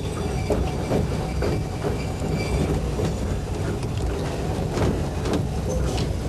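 Electric streetcar running on rails, a steady low rumble with wheel clatter and faint squeal from the wheels on the track.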